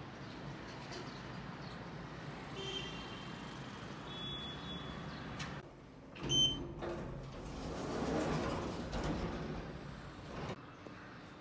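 Steady hum of distant city traffic heard from high up. About halfway through it gives way to a lift: a short electronic beep, the loudest sound, then the lift's steel doors sliding.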